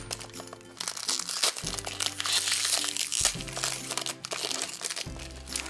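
A foil blind-bag packet crinkling as it is worked open by hand, over background music with sustained notes that change every second or two.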